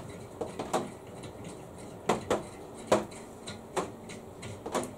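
Metal parts and tools being handled: about eight sharp, irregular clinks and knocks, some with a short metallic ring.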